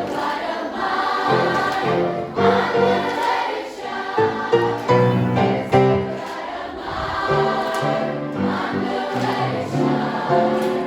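Girls' choir singing.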